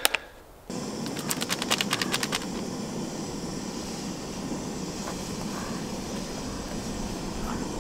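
A steady rushing noise that starts suddenly under a second in and runs on evenly, with a quick run of crinkling clicks from a foil freeze-dried meal pouch being handled about a second in.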